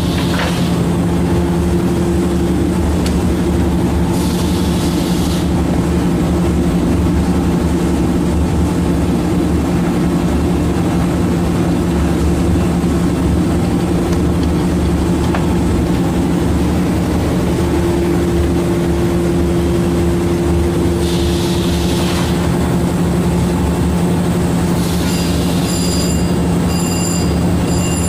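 Steady, loud drone of factory machinery with a constant hum, broken by a few short hissing sounds. Faint repeated high beeps come near the end.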